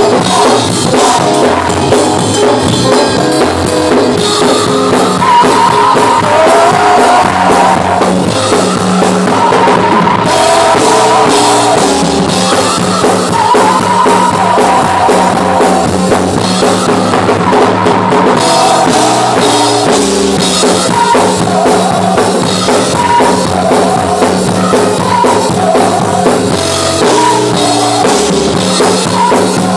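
Live gospel praise singing in church: several women's voices singing into microphones over a band with drums and bass, loud and full.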